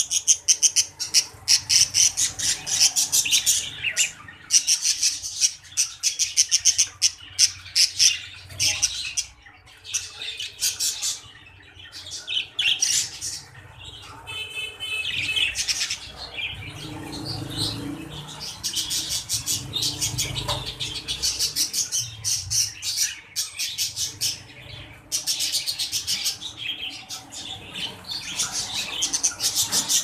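Budgerigars chattering with rapid high chirps and warbles that come and go in spells, with a harsher call about halfway through.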